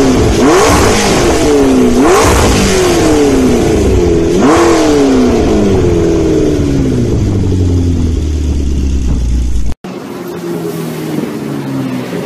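A car engine revving hard, its pitch climbing and dropping back several times, then falling steadily as it slows. About ten seconds in it cuts abruptly to a quieter engine sound.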